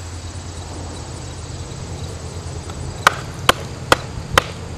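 Sharp wooden knocks of a thick stick striking a rotting log: four hits in quick succession, about two and a half a second, starting a little past halfway, after a low rumble.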